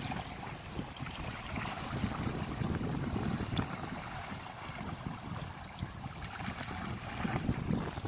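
Small waves washing and swirling among sandstone rocks at the water's edge, with wind buffeting the microphone in uneven gusts.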